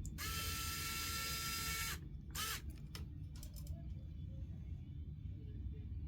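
A small handheld electric tool runs with a steady whine for nearly two seconds, then gives one short second burst that rises and falls in pitch. A few light clicks follow.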